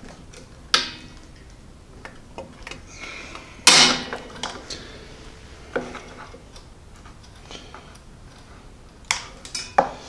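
A metal hand tool clinking and scraping against a lawn mower engine's flywheel brake lever and spring as they are pried at to remove the spring. It gives a few sharp metallic clicks, the loudest about four seconds in.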